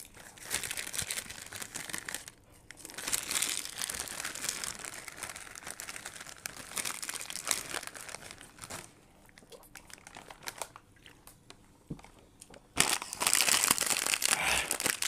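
Plastic chip packets crinkling as hands dig in for chips, coming in bursts with a quieter stretch in the middle. The crinkling is loudest near the end, when a packet is handled.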